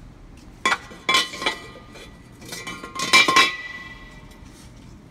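Metal-on-metal clanking at a cold saw, each knock followed by a brief ringing tone: one clank under a second in, a few more just after, then a louder clatter about three seconds in.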